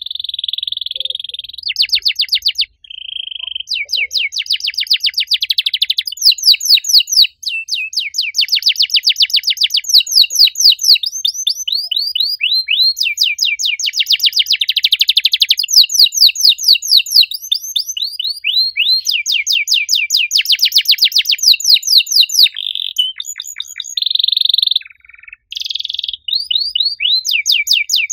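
Domestic canary singing a long, loud song of fast trills of rapidly repeated notes, runs of downward-sweeping notes and a few held whistles, pausing only briefly a few times.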